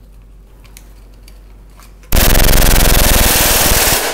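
A burst of rapid full-auto gunfire starts about halfway through, lasts about two seconds, and stops near the end. Before it there is only a low steady hum.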